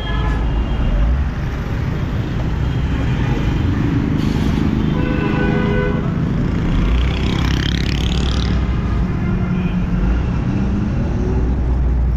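Busy city street traffic: engines of cars, vans and motorcycles running close by in a steady rumble. A vehicle horn toots briefly about five seconds in, and an engine revs up with a rising whine as it passes about seven seconds in.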